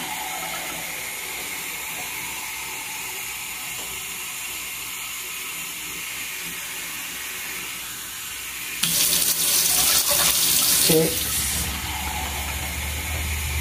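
Kitchen faucet running steadily into a glass measuring cup in a stainless steel sink. About nine seconds in the water turns louder and splashier for a few seconds, and a low hum starts near the end.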